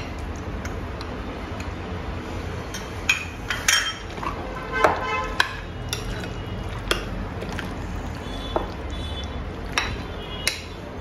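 A spoon stirring a thick mayonnaise-and-cream vegetable salad in a glass bowl, with scattered clinks of the spoon against the glass, a couple of them ringing briefly. A steady low hum sits underneath.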